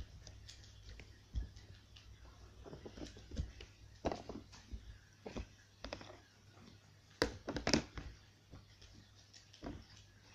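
Red slime being squeezed, stretched and pressed by hand, giving irregular small clicks and pops of trapped air, with the loudest cluster of pops a little past the middle.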